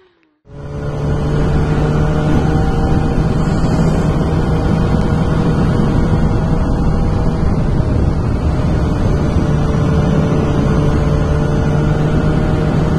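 Loud motorcycle exhaust with the silencer insert fitted, engine held at a steady speed after a brief silent break at the start.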